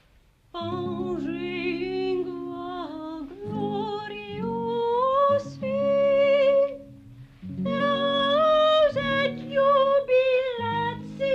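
A woman sings a slow melody, accompanied by a plucked lute, starting about half a second in.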